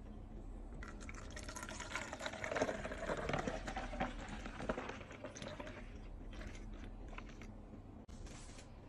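Juice pouring through a silicone funnel into a plastic bottle, splashing loudest in the middle of the fill, then thinning to a trickle and scattered drips as the bottle fills to the neck.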